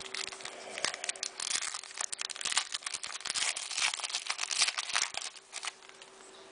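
Foil wrapper of a basketball trading-card pack crinkling and tearing as the pack is opened and the cards handled: a dense crackling rustle that dies down about five and a half seconds in, over a faint steady hum.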